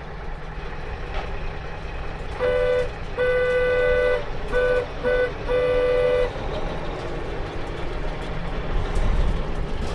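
A vehicle horn honks five times (short, long, short, short, long) over a steady engine rumble.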